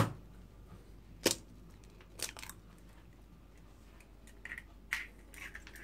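An egg being cracked into a stainless-steel mixing bowl. There is a sharp tap about a second in, a couple of small cracks a second later, and soft shell and hand handling noises near the end.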